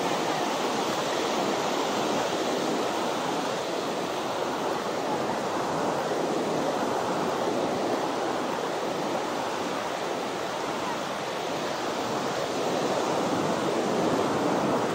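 Ocean waves washing onto a beach: a steady rushing noise.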